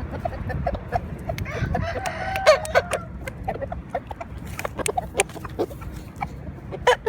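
A Thai game rooster crows once, beginning about a second and a half in and lasting about a second and a half. Short clucks and clicks from the birds come and go around it.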